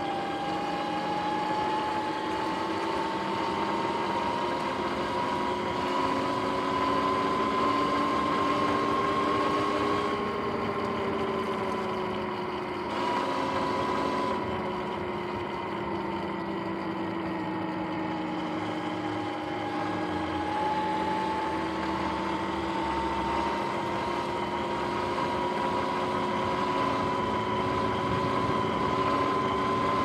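Sur-Ron X electric dirt bike's motor and drivetrain whining under way, over tyre and road noise. The high whine climbs over the first several seconds, eases lower through the middle, then climbs again near the end as the speed changes.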